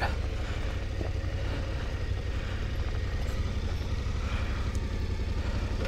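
Adventure motorcycle engine running steadily at low revs with an even, fast pulsing rumble, as the bike rolls slowly over dirt.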